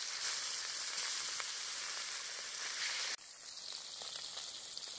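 Whole fish sizzling as they fry in hot mustard oil in a kadai, a steady crackling hiss. The sizzle drops suddenly to a quieter level about three seconds in.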